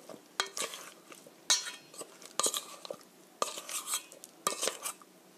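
Metal spoon clinking and scraping against a stainless steel mixing bowl as zucchini slices are stirred through egg batter, in irregular strokes.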